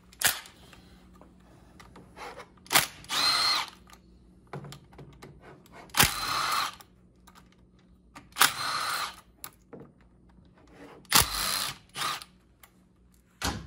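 Cordless drill-driver backing out the 10 mm screws of a snowmobile engine's PTO cover in four short whirring runs, each under a second and each opening with a sharp click.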